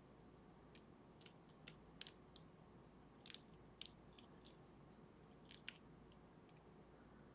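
Faint, irregular metallic clicks and ticks of a lock pick working the pins of a six-pin pin tumbler lock under tension, as pins are lifted and set during picking.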